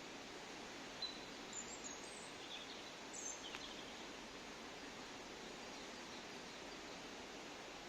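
Faint steady outdoor background hiss, with a few short, high bird chirps between about one and three and a half seconds in.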